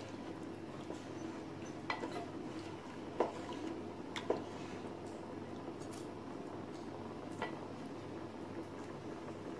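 Wooden spoon stirring watery rice and coconut milk in an aluminium pot, knocking against the pot's side about five times.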